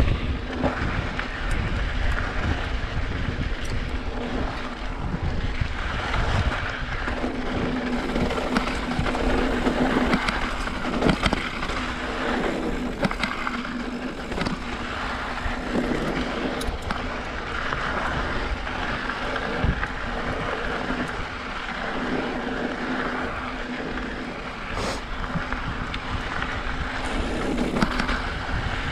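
Mountain bike riding down a dirt trail with loose rock: steady rushing noise of tyres and wind on the microphone, broken by frequent knocks and rattles as the bike goes over bumps.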